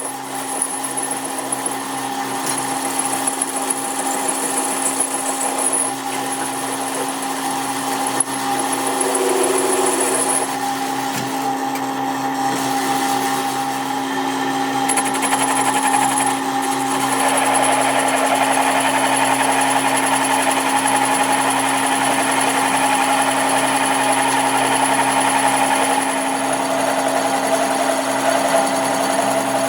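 Power tool running continuously on metal. Its whine holds steady, and its sound shifts twice: about ten seconds in and again a little past the middle.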